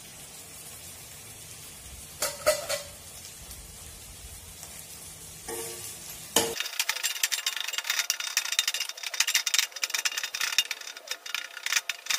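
Onion-tomato masala frying in a stainless steel pan, with a couple of soft knocks. About six and a half seconds in, this gives way to a steel spatula scraping and clinking rapidly against the pan as the mixture is stirred.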